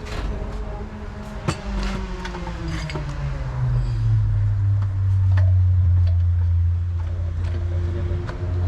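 A car engine running, its pitch falling over the first few seconds and then holding steady as if settling to idle, with scattered metallic clicks and knocks of tools.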